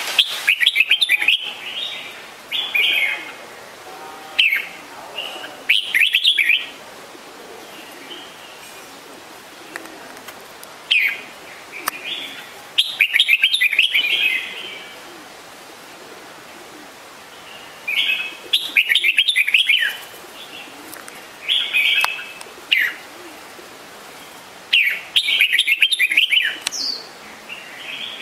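Red-whiskered bulbul singing: bursts of short, quick chirping phrases, a group every few seconds with pauses between.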